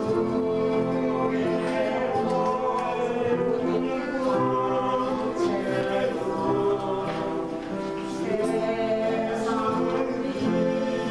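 A choir singing a sacred song, many voices holding sustained chords that change every second or so.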